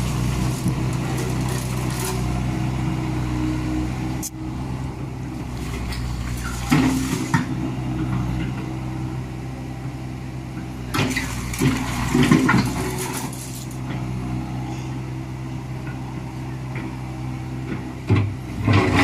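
Komatsu hydraulic excavator's diesel engine running steadily at work, with a few louder clanks and scrapes about a third of the way in and again just past the middle.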